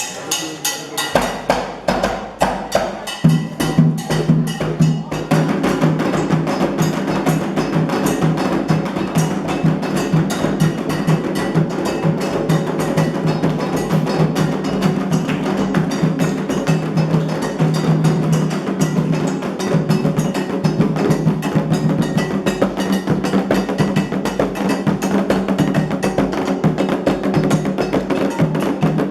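Candomblé ceremonial percussion music: drums struck in a fast, steady rhythm, the music growing fuller a few seconds in.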